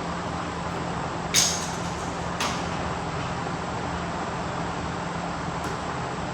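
A sharp click, then another about a second later, with a faint third near the end, over a steady background hiss and low hum.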